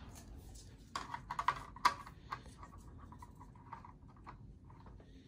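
Light clicks and rustles as a white diffuser strip is handled and pressed onto the rim of an LED ring light, with a cluster of sharp clicks about a second in, then fainter scattered ticks.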